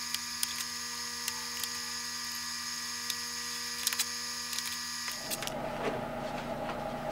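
A steady electrical hum and whine holding several fixed pitches, which cuts off abruptly about five seconds in. Over it come a few light clicks and taps as the wooden model bridge parts are handled and pressed together.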